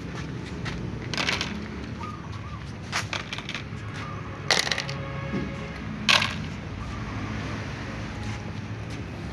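Dry cat kibble clattering into clear plastic food tubs in several short rattles, the loudest about four and a half and six seconds in, with cats crunching the pellets.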